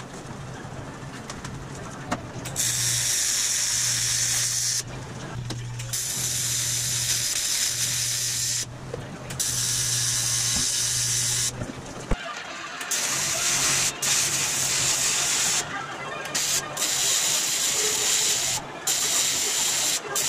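TIG welding arc on aluminum, fusing an aluminum filler rod to the edge of an aluminum body panel: a hiss that starts about two seconds in and runs in stretches of a few seconds, broken by short pauses as the arc is stopped and restarted. A steady low hum sits under the first half and stops about twelve seconds in.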